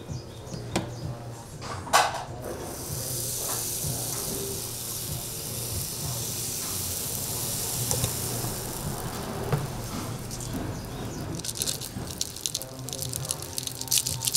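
Egg-waffle batter sizzling in a steady hiss as it is squeezed from a bottle into the hot bubble-waffle iron, after a sharp click about two seconds in. Near the end, a quick patter of chocolate chips shaken into the batter.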